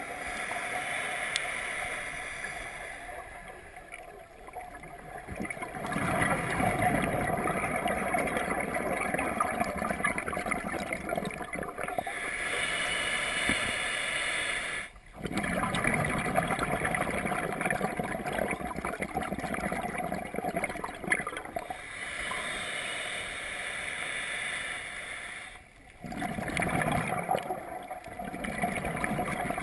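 Underwater sound through a camera's waterproof housing: the gurgling rush of scuba divers' exhaled regulator bubbles, coming in stretches of several seconds with quieter spells between, and cutting out briefly twice.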